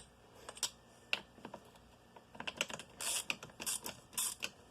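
Light, irregular clicks and taps of metal engine parts and tools being handled while fitting two-stroke engine crankcase halves together. A few short scraping rustles come around three to four and a half seconds in.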